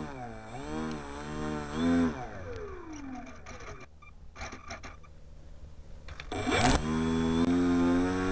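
Electric outrunner motor and propeller of a balsa RC Tiger Moth biplane, heard close up from the camera mounted on the model: revved up and down twice, then winding down with a falling pitch. A few clicks follow, a brief loud burst comes about six and a half seconds in, and the motor then runs up and holds a steady pitch.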